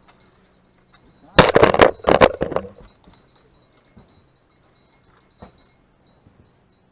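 A loud rattling clatter of quick knocks, starting about a second and a half in and lasting about a second and a half.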